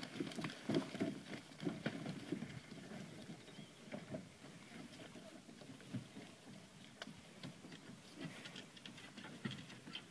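Running footsteps thudding on a wooden jetty's boards, loud at first and growing fainter and sparser as the runner moves away.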